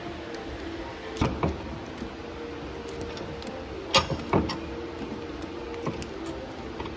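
Sharp metal clicks and knocks from handling and bending a battery cable's stripped copper strands in a new terminal end, in small clusters about a second in and about four seconds in. A steady hum runs underneath.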